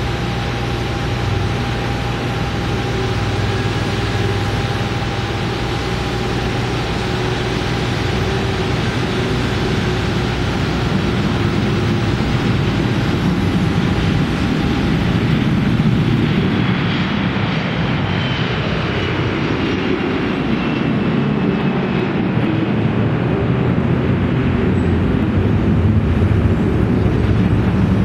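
Airbus A321's twin jet engines at takeoff thrust, a loud, steady noise with thin whining tones through the takeoff roll. About two-thirds of the way through, the hiss fades and a whine slowly falls in pitch as the sound turns deeper once the aircraft is climbing away.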